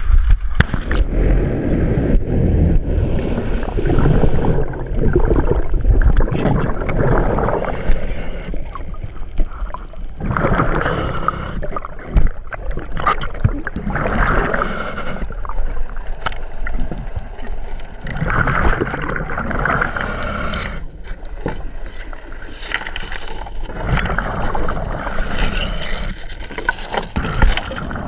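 Water rushing and sloshing around a camera in a waterproof housing as a scuba diver goes under and descends. Gurgling bursts, likely exhaled regulator bubbles, come every few seconds.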